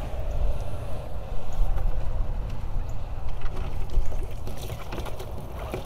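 A fishing net being hauled up over the side of a boat, water splashing and dripping off the mesh, with scattered light clicks and knocks, over a steady low rumble.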